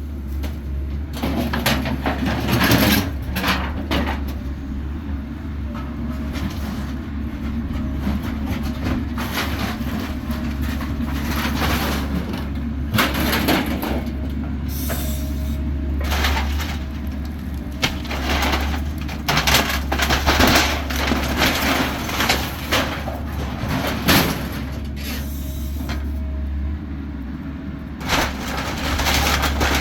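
Bobcat E85 excavator's diesel engine running steadily under load while it breaks apart a manufactured home, with frequent cracks, knocks and scraping of the house's wood and metal being torn and pulled down.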